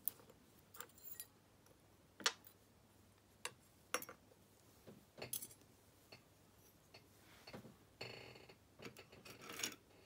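Small, sharp metallic clicks and taps from an American 1100 padlock's brass cylinder, its plug, pins and springs being handled, with a longer scraping rub near the end.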